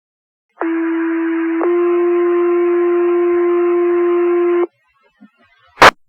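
Two-tone sequential fire pager alert sent over a dispatch radio channel: a low steady tone for about a second, then a slightly higher tone held for about three seconds. It is the signal that sets off the volunteer firefighters' pagers before the call is read out. A sharp radio click comes near the end.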